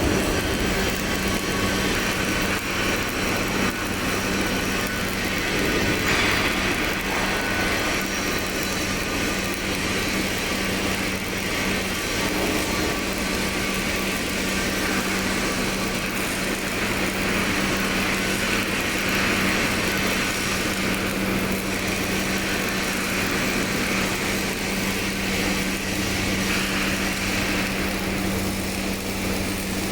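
Automatic pipeline welding machine at work: a steady hum with a constant hiss over it, running unbroken.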